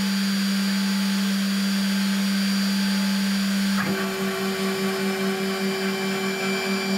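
CNC router spindle running at a steady speed with a steady whine. About four seconds in, a second, higher whine joins as the machine starts moving the spindle toward the workpiece.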